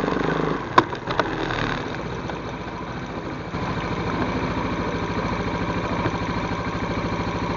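ATV engine idling steadily, with a couple of sharp clicks about a second in.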